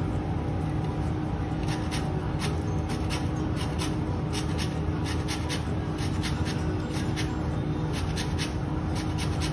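A lemon being rubbed over the fine teeth of a metal box grater to zest it, a rasping scrape with each stroke, about two strokes a second from about two seconds in. A steady low hum runs underneath.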